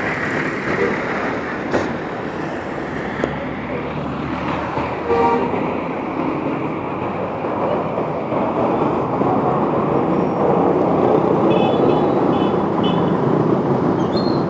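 Road traffic noise that grows louder in the second half as a vehicle draws near. A short horn toot sounds about five seconds in, and a run of short, high horn notes comes near the end.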